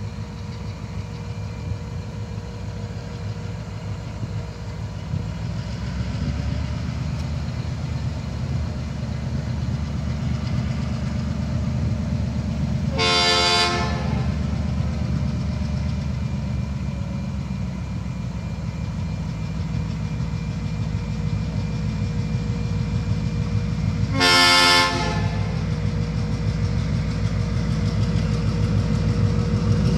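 A diesel-electric locomotive approaching a level crossing, its low engine rumble growing louder. It sounds its horn twice, two short blasts about eleven seconds apart, for the crossing.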